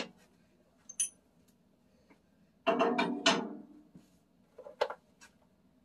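A sharp knock at the start, then about a second of ringing metal clatter from woodturning tools being handled and set down, and a few light clicks near the end.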